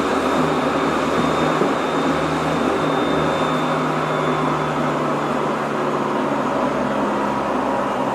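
Tokyo Metro 07 series electric train running at steady speed, heard from inside the car: a continuous rumble of wheels on rail with a low hum. A faint high steady whine fades out about halfway through.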